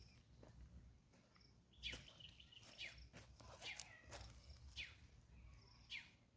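Faint birds calling: short, high chirps that fall in pitch, roughly one a second, over a low rumble.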